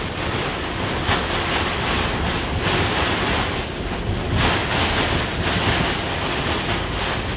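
Heavy rain and gusting wind from a severe thunderstorm with winds over 60 mph, beating on a sailboat's clear vinyl enclosure. It is a loud, dense rush that swells and eases with each gust, with wind buffeting the microphone.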